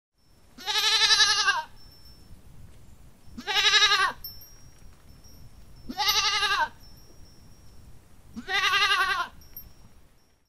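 Goat bleating four times, each bleat about a second long with a quavering pitch.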